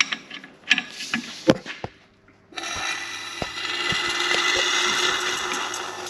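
Ratchet clicks and metal clunks from hand tools working on the F20C1 engine to turn it over, then from about two and a half seconds in a steady rushing noise.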